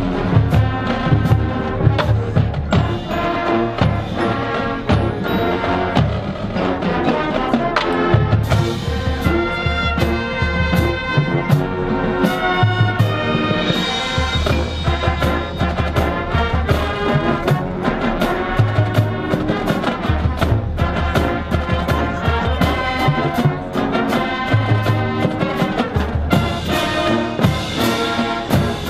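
High school marching band playing its field show: full brass section over drums and front-ensemble percussion, at a steady loud level.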